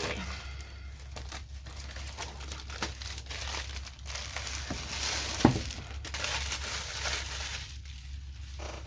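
Plastic packaging crinkling and rustling as a diamond painting kit is unwrapped, with one sharp knock about five and a half seconds in, over a steady low hum.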